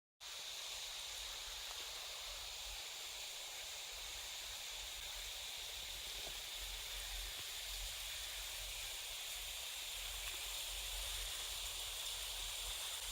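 Steady outdoor hiss with an uneven low rumble underneath, unchanging throughout.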